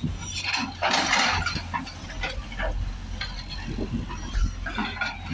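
Diesel engine of a working excavator running steadily, with scattered knocks and a short hiss about a second in.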